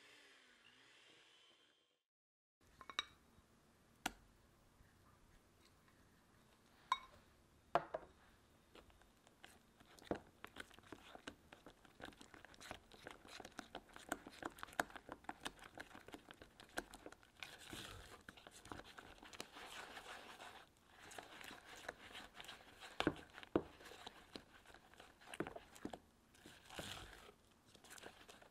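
A hand mixer's beaters whirring in thick butter-and-egg cake batter for about two seconds. After a short gap, a silicone spatula scrapes and folds the batter around a ceramic bowl, with a few sharp knocks against the bowl at first, then a steady run of scraping and squelching strokes.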